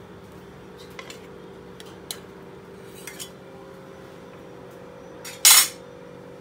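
A metal table knife against ceramic plates: a few light clicks, then a louder brief scrape about five and a half seconds in, over a faint steady hum.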